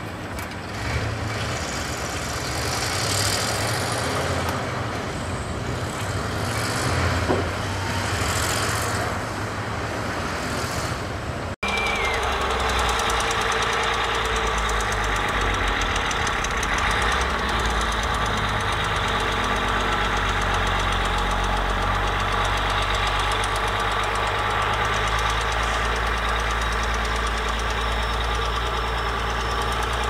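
Hyundai dump truck's diesel engine running with the bed tipped while wet soil slides off in several rushes. After a sudden cut about a third of the way in, a small crawler bulldozer's diesel engine runs steadily as the dozer pushes wet soil.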